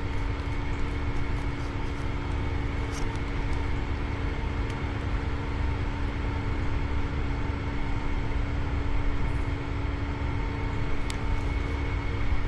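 Heavy land-clearing machinery running steadily, a constant engine drone with a steady hum over a low rumble, with a few faint clicks.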